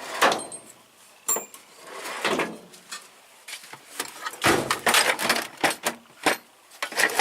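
Loose metal hand tools clinking and clattering as they are rummaged through in a tool box drawer, in irregular bursts that grow busier about halfway through.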